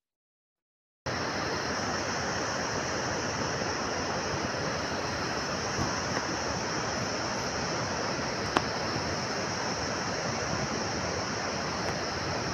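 After a second of silence, a steady, even rushing noise cuts in abruptly and holds, with a constant high hiss over it. A single sharp click comes about two-thirds of the way through.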